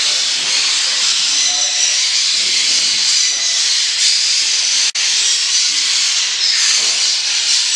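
Dense, continuous high-pitched chattering and chirping of a flock of cockatiels and other small parrots in an aviary. The sound cuts out for an instant about five seconds in.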